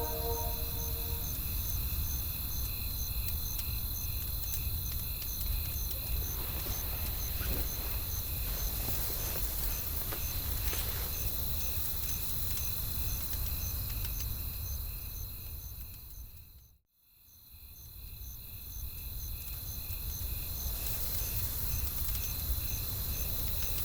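Night ambience of insects chirping in an even pulse of about three a second over a steady high drone and a low rumble, with a few faint crackles of a wood fire. It fades down to silence about seventeen seconds in and fades back up.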